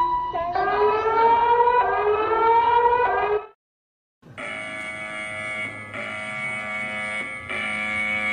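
Two emergency alert tones. First a rising, siren-like wail of several pitches, which cuts off abruptly about three and a half seconds in. After a short silence comes a steady, harsh buzzing alert tone of many pitches that dips briefly a few times; it is the attention signal that comes before a Danish emergency announcement.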